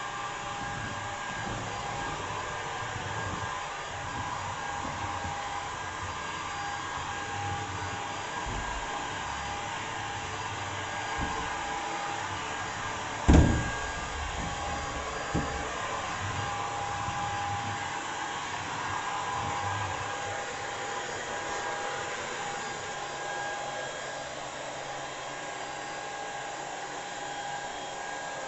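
Balmuda The Cleaner cordless stick vacuum running steadily with a whine over its rush of air. There is a sharp knock about halfway through and a lighter one a couple of seconds later.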